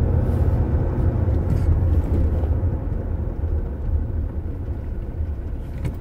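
Cabin noise of a 2005–2015 Toyota Hilux/SW4 driving over rough, corrugated asphalt: a steady low rumble from the tyres and suspension, heard from down in the footwell.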